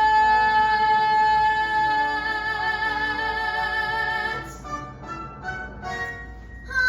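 Song music: a woman's voice holds one long high note with vibrato over instrumental backing, stopping about four seconds in, then a few soft, short instrumental notes follow.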